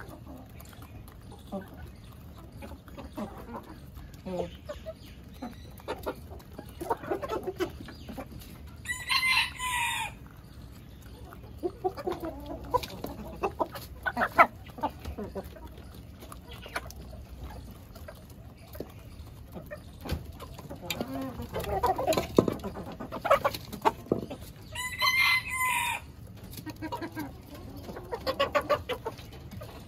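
Chickens clucking as they forage, with a rooster crowing in two short, loud calls, one about a third of the way in and one near the end.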